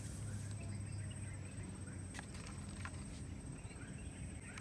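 A few light clicks from hands handling a plastic Kodak M35 film camera and its wrist strap, over a low steady hum.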